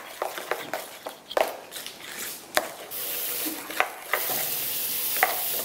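A few light knocks and clicks of a utensil against a mixing bowl. About three seconds in, a steady hiss begins and runs until just before the end.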